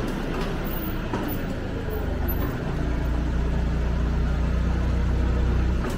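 Forklift engine running as the forklift drives forward under load, a steady low rumble that grows louder about two and a half seconds in.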